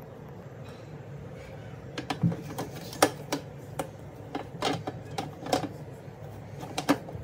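Hard plastic clicks and knocks as the Frunuts food dehydrator's plastic lid is set on its stacked trays and pressed into place: about a dozen sharp, uneven clicks starting about two seconds in, over a steady low hum.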